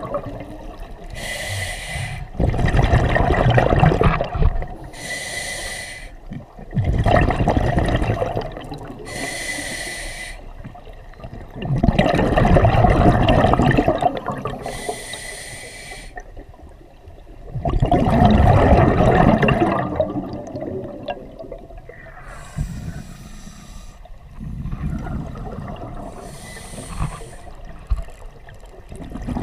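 Scuba diver breathing through a regulator underwater. Each short hissing inhale carries a thin whistle and is followed by a louder, longer rush of exhaled bubbles, the cycle repeating about every five seconds.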